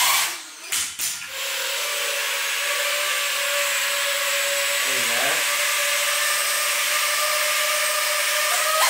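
DJI Avata fitted with the Axis Flying 3.5-inch kit, its brushless motors and three-bladed props spinning at a steady speed with an even whine and rush of air. A few short knocks come in the first second or so before the steady whine settles in.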